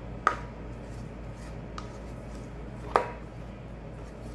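Stainless steel mixing bowl knocking against an aluminium tube cake pan twice, each knock with a short metallic ring, as the batter is tipped and scraped out. A fainter click falls between them, over a steady low hum.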